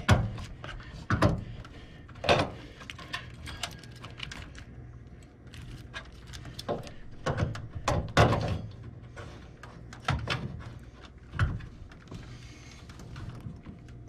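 Irregular plastic clicks and knocks from a washing-machine water inlet valve being pushed and twisted into its mounting hole in the sheet-metal cabinet. The valve is not yet locked in place. A low steady hum runs underneath.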